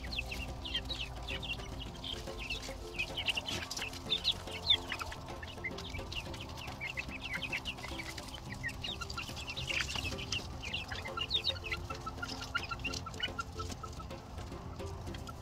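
A flock of young Olive Egger chickens peeping and clucking, with many short high calls overlapping continuously. A few louder calls come around four to five seconds in.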